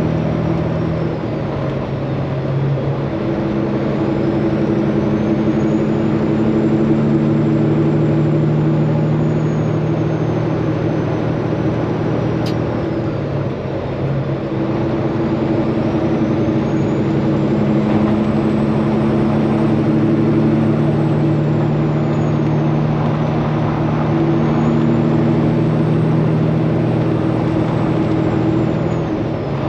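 Straight-piped Peterbilt 389 semi truck's diesel engine running as it drives down the road, with a faint high whistle that rises and falls several times. The engine note breaks briefly about halfway through, then carries on.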